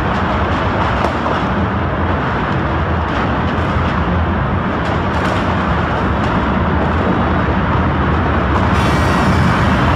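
Fire engines' engines running steadily: a loud, constant low rumble under a rushing noise. Near the end a brighter hiss sets in on top.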